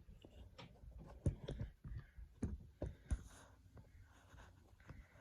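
A few short, separate clicks and light knocks, most of them in the first half, over faint room tone.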